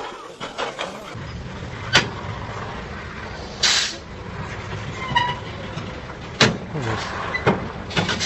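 Heavy truck's diesel engine running low and steady as the long semi-trailer crawls over rough ground. A short air-brake hiss comes a little past midway, and there are a few sharp clicks.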